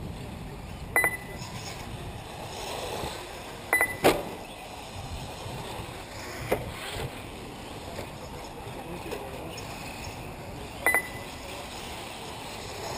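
Outdoor hiss and wind at an RC off-road track, broken by several short, sharp high beeps and clicks: one about a second in, a pair near four seconds, one in the middle and another near eleven seconds.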